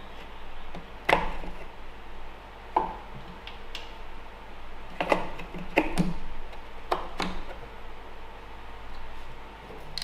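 Hand tools and metal parts being handled: about six separate sharp knocks and clinks, spaced irregularly, with quiet between them.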